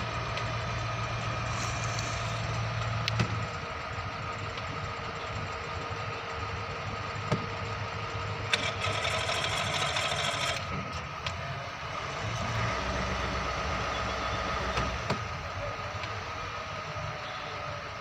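Mobile crane diesel engines running steadily under load as they hoist a boat out of the water, with a steady whine over the engine and a few sharp clicks. A hiss rises for about two seconds near the middle.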